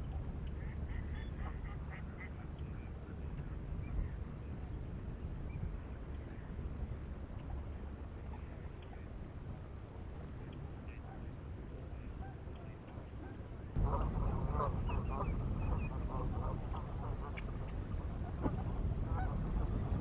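A low steady rumble with a few faint bird chirps. About 14 seconds in, the sound jumps louder as geese start honking, many short calls in quick succession.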